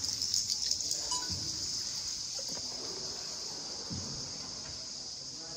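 Steady high-pitched chirring of insects, with faint water sounds and a few soft, dull thuds.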